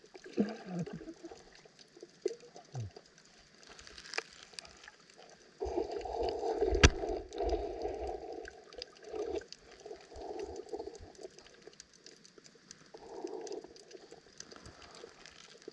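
Muffled underwater sound picked up by a submerged camera: murky swells of moving water, louder through the middle, with scattered faint ticks and one sharp click about seven seconds in.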